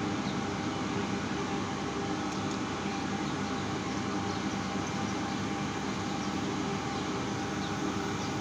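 A steady mechanical drone with a low hum in it, unchanging in level.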